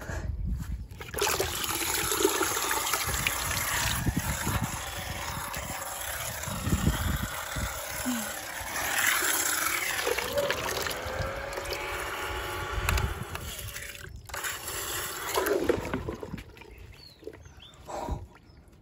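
Water running and splashing as a steady rush. It starts about a second in, breaks off briefly near 14 s, comes back for a couple of seconds, then fades.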